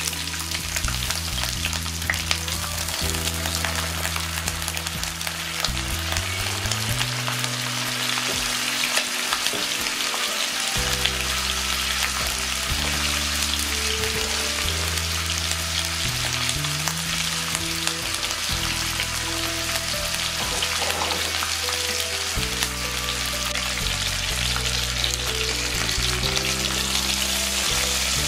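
Saury fish frying in a pan of hot oil with minced garlic and ginger, sizzling steadily.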